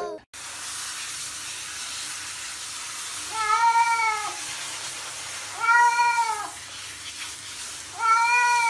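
A cat meowing: three drawn-out meows about two seconds apart, each rising and then falling in pitch, over a faint steady hiss.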